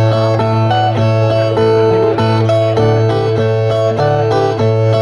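Two Brazilian repentista violas, steel-stringed, playing the rhythmic picked and strummed rojão interlude between sung stanzas of a cantoria, with repeated notes over a steady low ringing bass.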